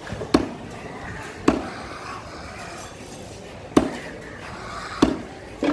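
A large fish knife chopping through a bony piece of yellowfin tuna onto a wooden chopping block: five sharp chops at irregular intervals.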